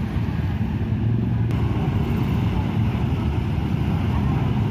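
Many motorcycle engines running at low speed together, a steady low rumble.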